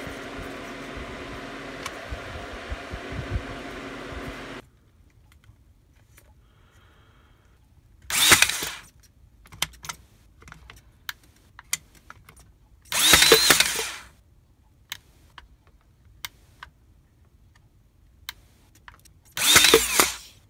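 Ryobi 18V AirStrike brad nailer's motor running in three short bursts of about a second each, each a rising whine: the nailer cycling again with its switch wired to bypass the circuit board. Before them a steady fan hum cuts off suddenly a few seconds in, and small clicks of wires and handling fall between the bursts.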